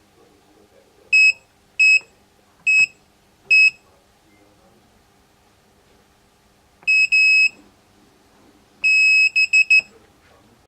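Wireless home alarm kit giving high-pitched electronic beeps while a keypad is being registered. There are four short single beeps about a second apart, then a double beep with the second one longer, then a long beep followed by three quick short beeps.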